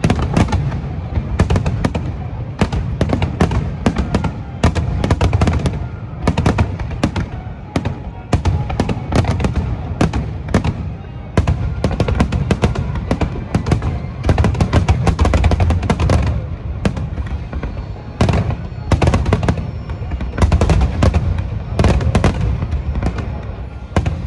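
Aerial firework shells bursting in rapid, overlapping volleys: deep booms with sharp cracks and crackle between them, with the show's music playing underneath.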